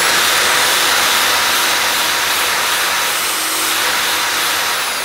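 Electric drill driving a steel wire brush forward against rusty sheet steel: a steady loud whirring scrub. The brush bites poorly because its bristles are bent over from running in this direction. It eases off near the end.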